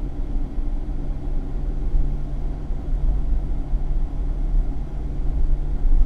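Steady low rumble of a car driving at road speed, heard from inside the cabin: engine and tyre noise with a constant low hum.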